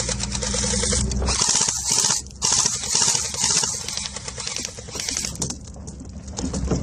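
Golden Eagle (JG) M4 electric airsoft gun firing on full auto: a fast rattle of clicks from the gearbox in bursts, over a low steady rumble at the start.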